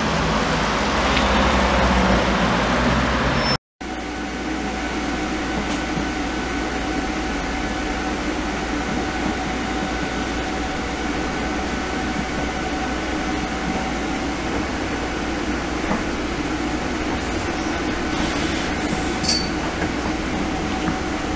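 Van Hool Exqui.City double-articulated electric trolleybus passing at the kerb for the first few seconds. Then the inside of the trolleybus while it runs: a steady electric whine over a rolling, humming background.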